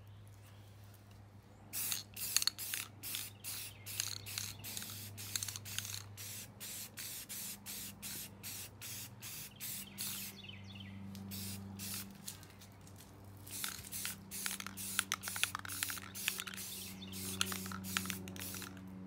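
Spray paint being applied to a bicycle frame in many short hissing bursts, a couple a second, with a pause about ten seconds in, over a faint low steady hum.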